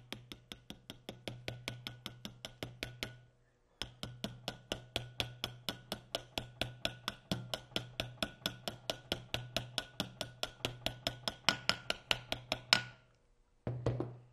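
Hammer tapping quickly and evenly, about five light taps a second, driving a new rubber motor mount onto the end of a small pump motor until it sits flush. There is a short pause about three seconds in, and the taps are loudest near the end.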